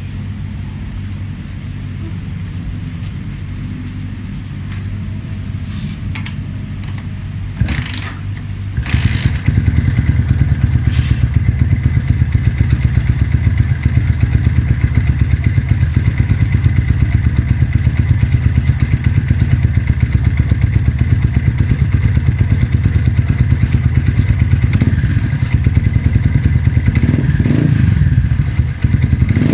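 Yamaha Vixion 150 (FZ150) single-cylinder engine idling steadily through an aftermarket Akrapovic Titan carbon exhaust, with an even throbbing pulse. About nine seconds in it suddenly gets much louder, and near the end the throttle is blipped a few times, the pitch rising and falling briefly each time.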